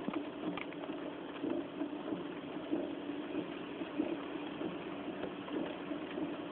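A car engine idling in stopped traffic, heard from inside the cabin in a rainstorm: a steady low hum under a steady haze of noise, with light irregular ticks.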